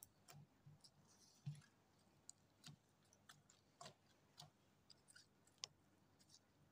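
Clear water slime being pressed and folded by a gloved hand: faint, irregular sticky clicks and small wet pops.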